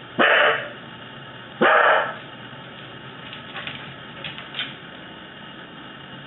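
Corgi barking twice, about a second and a half apart, then a few faint short sounds.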